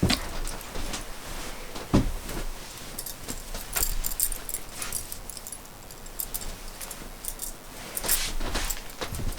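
Irregular knocks and light clinking of objects being handled, with a few sharper knocks spread through.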